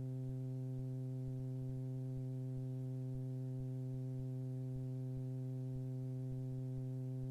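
Steady electrical hum with a row of even overtones on an aircraft intercom audio feed; the engine and wind noise are gated out while nobody is talking.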